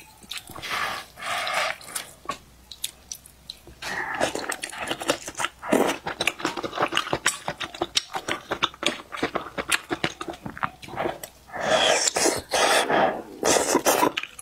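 Close-miked eating sounds: wooden chopsticks stirring noodles in a metal bowl of beef noodle soup, then steady chewing with many small clicks, and a few louder mouth noises near the end.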